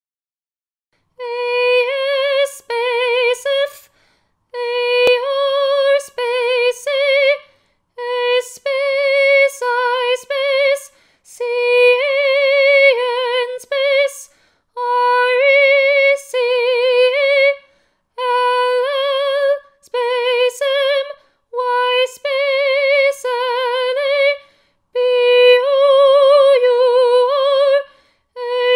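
A woman's voice singing the text in a chant-like line that stays close to one pitch with a slight vibrato, in short phrases separated by brief pauses, starting about a second in.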